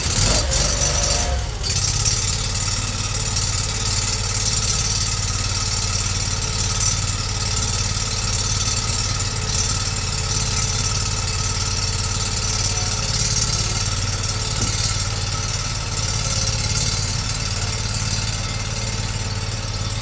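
Engine of a tracked stump grinder running steadily, just after being started.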